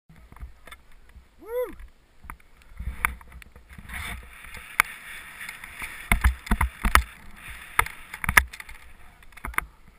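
Snow scraping and hissing under the camera wearer sliding down a ski run, with rumbling wind noise on the action-camera microphone. Sharp knocks and clicks come through repeatedly, thickest from about six to eight and a half seconds in, and a short voice call rises and falls about a second and a half in.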